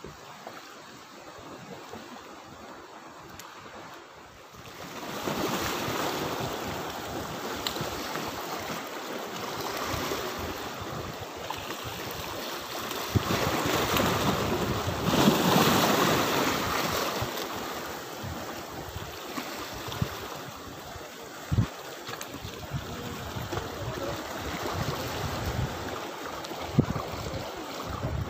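Small sea waves washing against a rocky breakwater, with wind buffeting the microphone. The rushing grows louder about five seconds in and is strongest around the middle.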